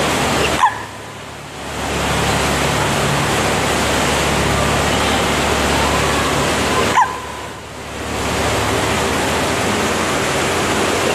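Steady loud rushing noise of a tour boat's engine and wash, echoing under a long bridge, with a low hum beneath it. The noise dips briefly about a second in and again about seven seconds in, each dip just after a short squeak.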